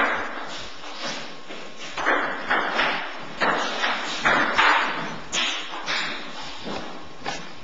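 Table tennis rally: a ping-pong ball knocking off the paddles and the table in a quick, irregular series of hits, each trailing off briefly.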